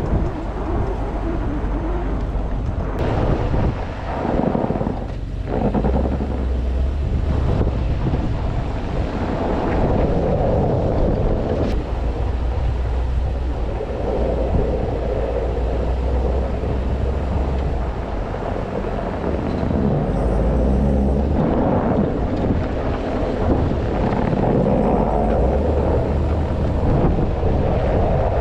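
Engine of snow-clearing equipment running steadily, with a low drone that shifts in level a few times, and wind noise on the microphone.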